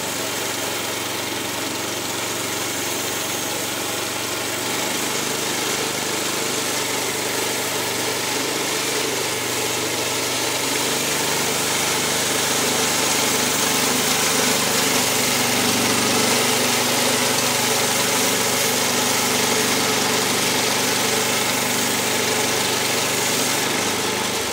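Woodland Mills HM122 portable bandsaw mill cutting a log: its gas engine runs steadily under load while the band blade hisses through the wood. It grows slightly louder through the middle of the cut.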